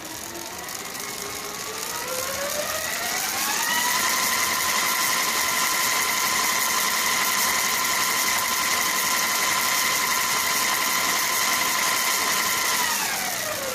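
E-bike motor run on a generic G&G 450 W controller, a whine of several tones rising in pitch as the motor speeds up over about four seconds, holding steady, then falling as it slows near the end.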